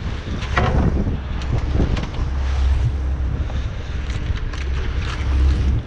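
Wind buffeting the microphone over the steady low drone of a fishing boat's engine, with scattered clicks and rattles of lobster shells being handled in a plastic crate.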